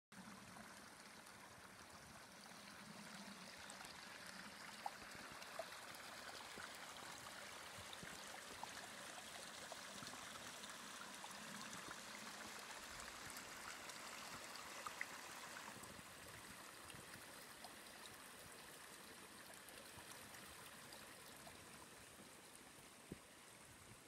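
Small snow-buried woodland brook running over little waterfalls: a faint, steady rushing, a little louder through the middle and softening after about sixteen seconds. A few sharp clicks sound over it.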